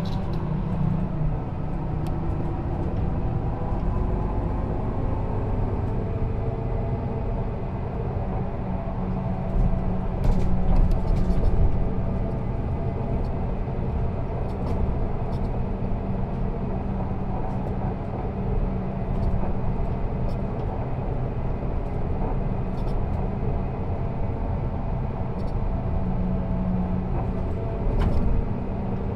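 Viseon LDD 14 double-decker coach's diesel engine idling steadily at a standstill, a low, even hum. About ten seconds in it briefly gets louder, with a few sharp clicks.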